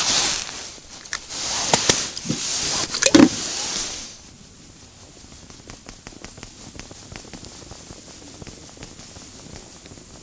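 Rustling handling noise close to the microphone, with a few clicks and a knock about three seconds in, as a freshly caught roach is handled over an ice hole. After about four seconds it drops suddenly to a quiet background with faint rapid ticks.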